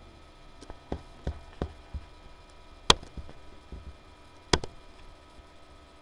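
A series of sharp clicks from working a computer mouse, picked up by the desk microphone. There are five lighter clicks in the first two seconds, then two much louder knocks about three and four and a half seconds in.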